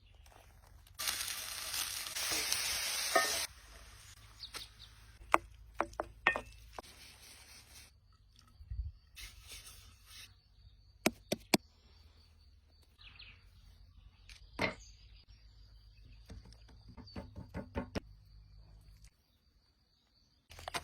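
Msemen flatbread cooking: a loud burst of sizzling for a couple of seconds, then scattered sharp taps and clicks of handling and utensils, with a faint steady high tone through much of the rest.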